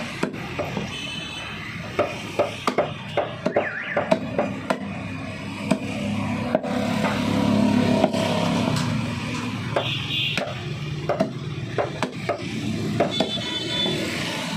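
Heavy butcher's cleaver chopping buffalo meat against a wooden chopping block: repeated sharp strikes, fewer in the middle stretch.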